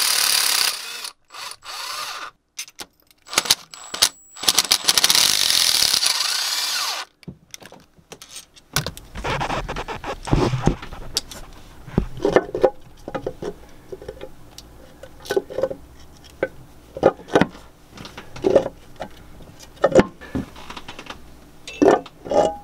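A power tool runs in several short bursts as the valve cover bolts are undone. After that come scattered metal clinks and knocks as the cover and bolts are handled.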